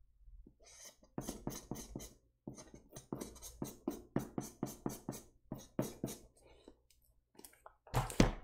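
Felt-tip permanent marker (Sharpie) scribbling hard back and forth over a shipping label on a cardboard box, a rapid run of short squeaky strokes with brief pauses. Near the end comes a louder rustle and knock as the box is handled.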